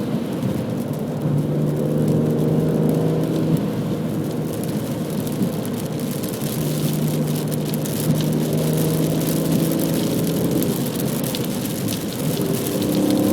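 Stock BMW M3 engine running on the move, its note holding steady for a few seconds at a time over steady tyre and road noise. Its pitch rises near the end as the car picks up revs.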